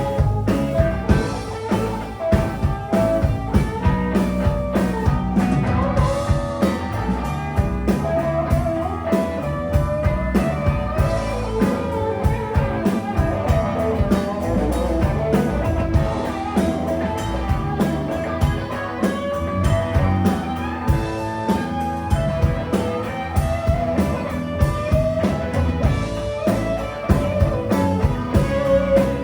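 Live blues-rock band playing an instrumental passage: guitar carrying a wavering melodic line over bass and drum kit.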